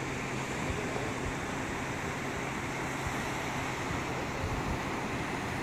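Steady wind rumbling on the microphone over the wash of surf breaking on the beach below, with a faint low steady hum underneath.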